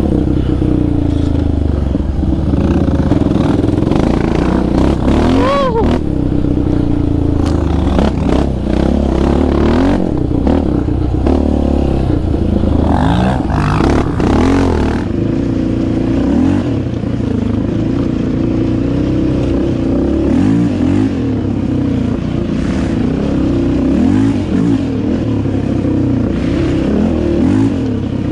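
Sport quad engine revving up and down hard as it is ridden along a dirt trail, heard from on board. For the first half it is a Yamaha Raptor 700R's single-cylinder engine; about fifteen seconds in the sound switches to another sport quad's engine, also revving up and down.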